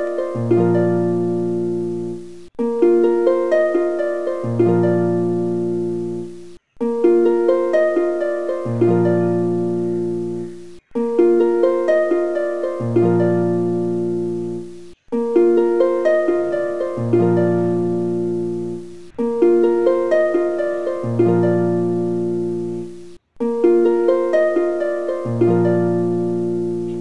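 Background music: a short instrumental phrase of quick, decaying notes over a low held bass note, looping about every four seconds with a brief break between repeats.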